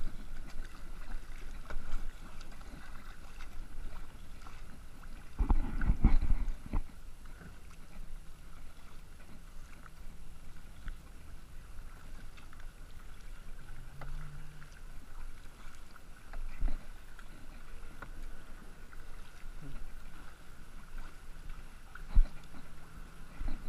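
Kayak paddling: the paddle blades dipping and water splashing and lapping at the kayak's hull, with a louder rumble about six seconds in and a few sharp knocks near the end.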